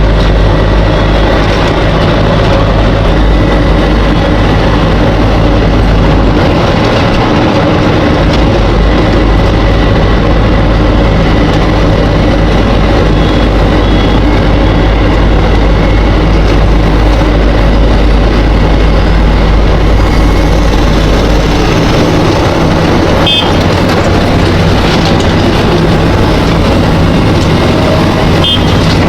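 Steady, loud running of vehicle engines and road machinery, a continuous low hum under dense mechanical noise.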